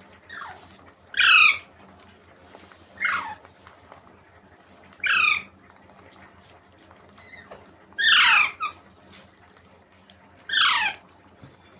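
Baby parrot giving repeated harsh squawking calls, each sliding down in pitch, about one every two seconds.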